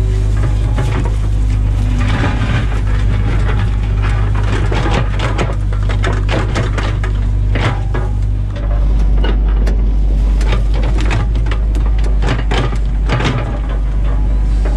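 Background music with a sustained bass line that shifts about eight and a half seconds in, and sharp percussive hits over it.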